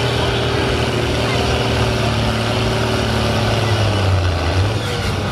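John Deere 4040's six-cylinder diesel running hard under full load while pulling a weight-transfer sled, its pitch sagging slowly as the engine is dragged down.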